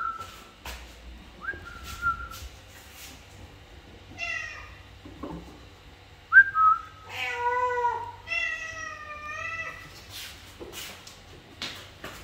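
A person whistling short calls to a cat, and a domestic cat meowing several times in reply. Brief whistles come at the start, about a second and a half in and about six seconds in; a falling meow about four seconds in is followed by two longer meows between about seven and ten seconds in.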